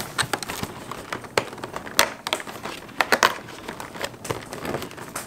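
Cardboard advent calendar packaging being opened and handled: irregular crinkling and crackling.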